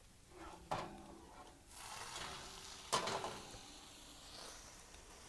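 Roasted quail sizzling in a hot pan just taken out of the oven, the sizzle starting about two seconds in, with two knocks of the pan on the oven or counter, about a second in and near the three-second mark.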